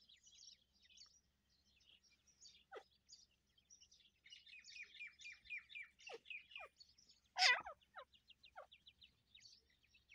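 Young francolin chicks peeping in thin, high chirps, with a quick run of falling chirps around the middle. About seven and a half seconds in comes one louder call that slides down in pitch.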